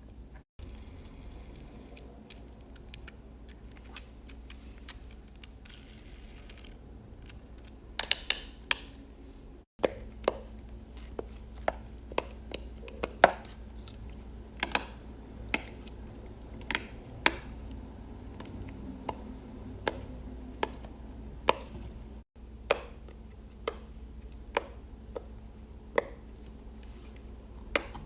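Silicone push-pop fidget toys (pop-it poppets and dimple fidgets) being pressed, giving sharp, separate pops at an irregular pace of roughly one or two a second, with the sound cutting out very briefly three times.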